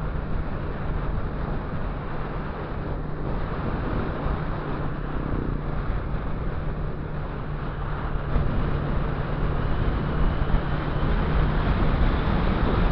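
Motorcycle under way at a steady speed: the engine running as a constant low hum, mixed with wind and road noise, getting a little louder toward the end.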